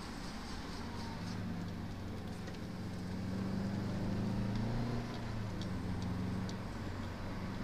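Subaru Impreza WRX STi (GC8) turbocharged flat-four engine running under way, heard from inside the cabin with tyre and road noise. The engine note climbs from about three seconds in, then drops just after five seconds and carries on steadily.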